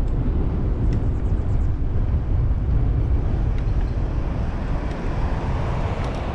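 Steady rumble of wind buffeting a bike-mounted camera's microphone, mixed with tyre noise on asphalt, as a bicycle coasts downhill at speed.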